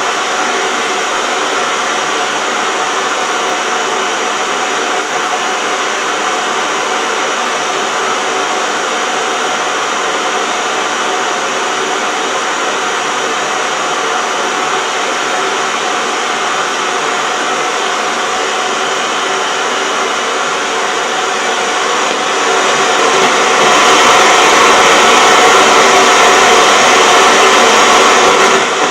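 Old television's static from an untuned channel: a steady hiss that gets louder about three-quarters of the way through.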